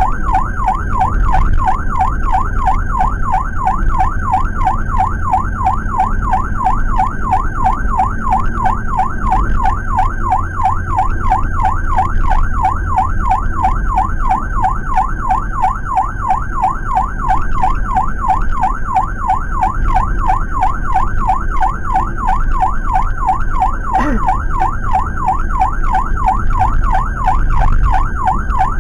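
Ambulance siren in a fast yelp, its pitch rising and falling rapidly without a break. It is heard from inside the Suzuki APV's cabin over the van's engine and road rumble.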